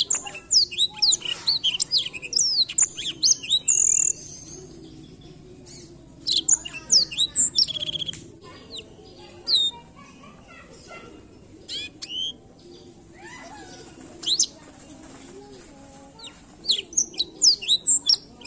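Black-throated canary (blackthroat) singing in bursts of quick, high twittering notes that sweep up and down, with pauses of a second or two between phrases.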